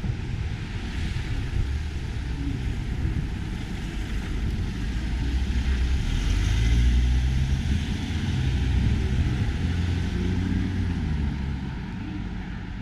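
A passing motor vehicle's low engine rumble, building to its loudest around the middle and then fading.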